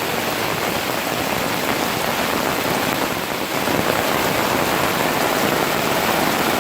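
Rain falling steadily, a dense even hiss of drops that gets a little louder about four seconds in.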